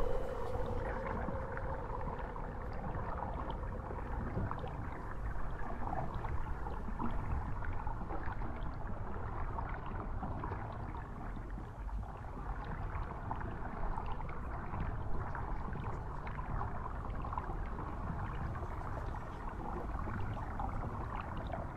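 Steady low rushing, rumbling noise with faint scattered ticks; a short held tone fades out just after the start.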